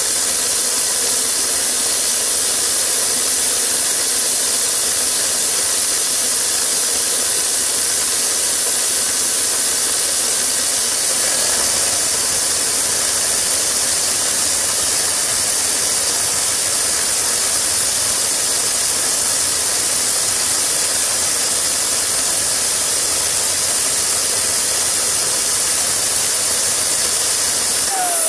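Home-built gas turbine made from a turbocharger, running steadily with a loud, high-pitched jet hiss. At the very end its pitch starts to fall as it begins to spool down.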